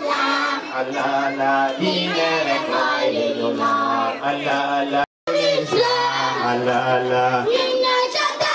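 A group of children singing together, with a brief dropout in the sound just after halfway.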